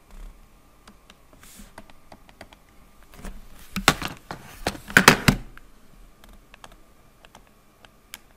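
Computer keyboard being typed on: scattered key clicks, with a quick run of louder keystrokes about four to five seconds in.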